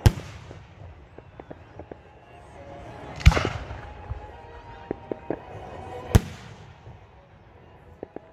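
Aerial fireworks shells bursting: three sharp booms about three seconds apart, the second one trailed by a hiss. Scattered fainter pops from other fireworks come in between.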